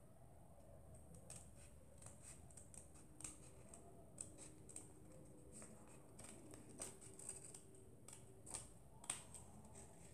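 Scissors snipping through a folded sheet of coloured paper in faint, short, irregular cuts, the sharpest snips near the end.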